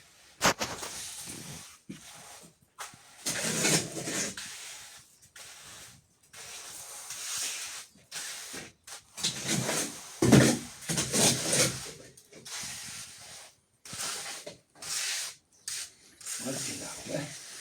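Wet cement mortar being scraped and smoothed across a floor with a hand tool, in repeated strokes of a second or two each with short pauses between.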